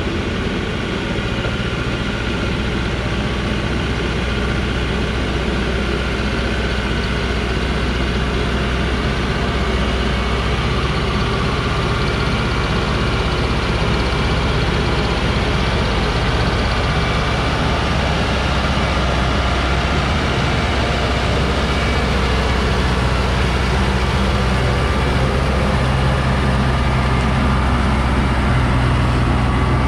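Diesel engine of a loaded Dongfeng logging truck running steadily under load as it climbs a steep rocky track, growing a little louder near the end as the truck comes close.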